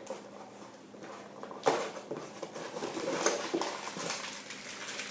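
Packaging being handled while parts come out of a bike's shipping box: rustling with scattered small knocks, and one sharp knock about a second and a half in.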